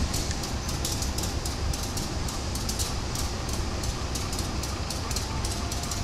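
Electric commuter train running slowly over the station points: a steady low rumble with a quick run of high ticks.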